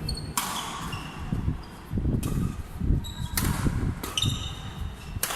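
Badminton rally in a large hall: four sharp racket strikes on the shuttlecock, one every second or two, with short high shoe squeaks on the court floor between them.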